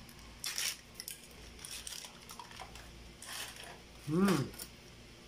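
Aluminium foil crinkling and rustling in several short bursts as it is peeled back off a baking tray. A brief vocal sound comes about four seconds in.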